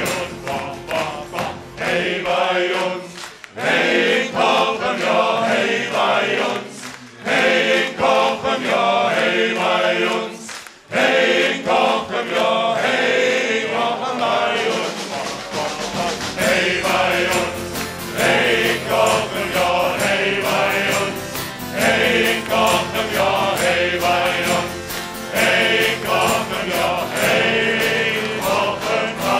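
A men's group singing a carnival song together in chorus, accompanied by acoustic guitars, with short breaks between phrases in the first half.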